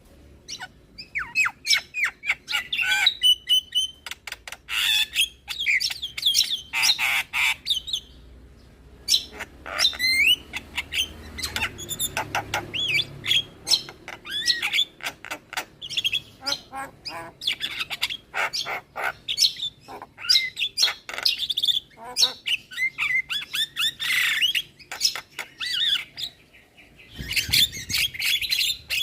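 Javan myna (jalak kebo) singing a busy, chattering song: quick whistles that sweep in pitch, sharp clicks and harsh squawks, with brief pauses between bursts.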